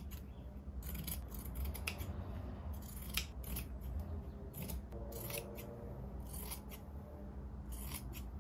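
Scissors cutting through thick striped linen upholstery fabric: a series of irregular snips and slides of the blades through the cloth.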